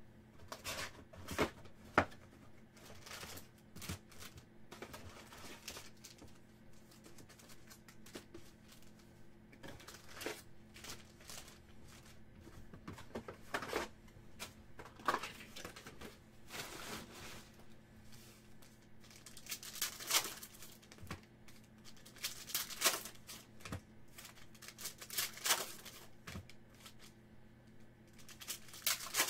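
Silver foil wrappers of 2019 Select football card packs being torn open and crinkled, with cards handled in between. Scattered short crackles and clicks, louder in the second half.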